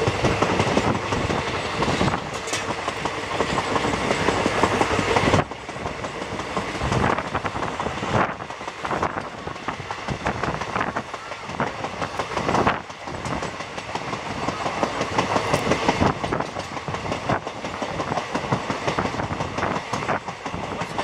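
Moving passenger train: coach wheels clattering over the rail joints under a steady rush of running noise, heard from an open coach window. The noise drops sharply about five seconds in, then carries on.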